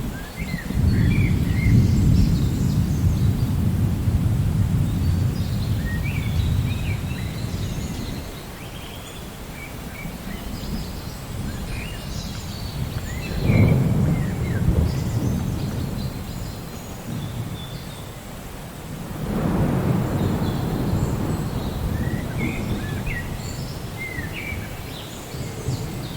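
Steady rain with thunder rumbling three times: a long rumble starting about a second in, a sharper clap about halfway through, and another rumble later on. Birds chirp now and then over the rain.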